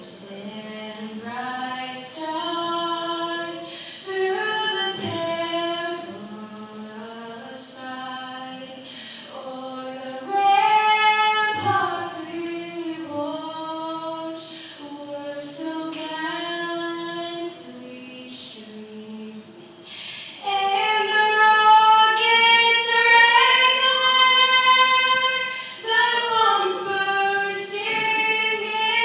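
A solo female voice sings the national anthem unaccompanied, holding and stepping between notes. About two-thirds of the way in it climbs to higher, louder held notes.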